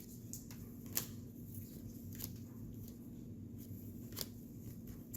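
Topps baseball trading cards being handled and flipped through: light, scattered flicks and taps, with a sharper snap about a second in and another near the end.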